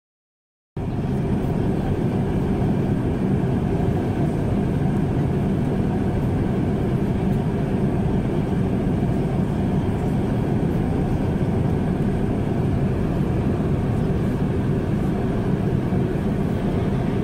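Steady cabin drone of a Boeing 747-400 in flight, a low, even rush of airflow and engine noise, cutting in abruptly less than a second in after a moment of silence.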